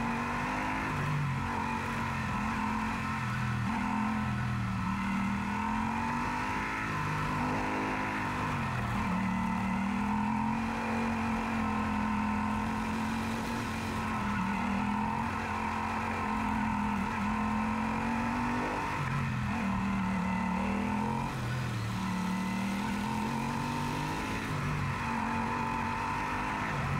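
Yamaha Super Ténéré's parallel-twin engine running on the move, its pitch falling and climbing back several times as the rider eases off and opens the throttle.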